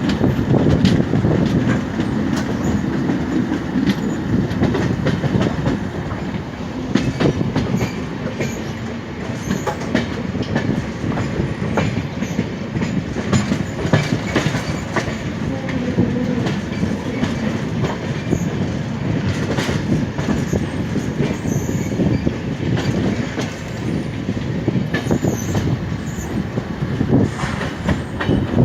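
Express train of LHB passenger coaches running along the track: a steady wheel-on-rail rumble with irregular clicks and clatter over rail joints.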